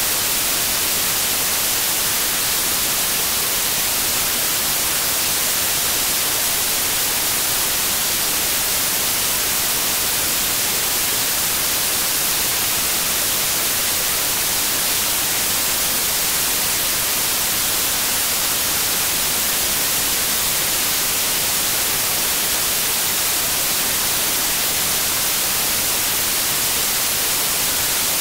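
Steady generated noise: an even, unchanging hiss, strongest at the high end, with no rhythm or events.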